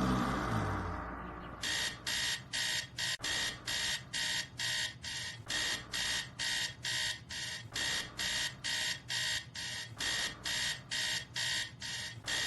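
Electronic alarm clock beeping rapidly, about three short high-pitched beeps a second, starting about a second and a half in as a fading tail of music dies away.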